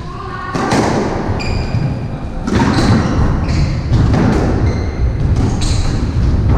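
Squash rally: the ball cracks off rackets and smacks against the court walls again and again, about once a second, with short high squeaks of shoes on the wooden court floor over a steady low rumble.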